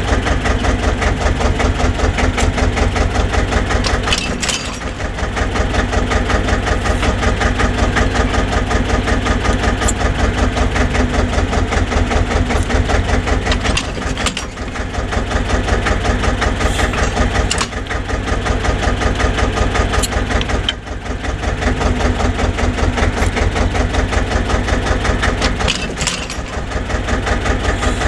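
Vintage tractor's diesel engine running at idle with an even, rhythmic beat, dipping briefly several times under load, while the rear-mounted reversible plough is raised and swung over with a few sharp metal clanks.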